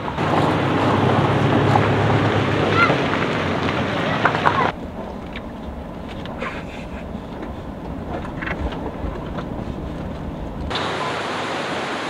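Wind and road noise around a Toyota Innova driving on a gravel road. About five seconds in this gives way to the duller, low rumble heard inside the car's cabin as it rolls down a dirt track. Near the end the open-air noise returns.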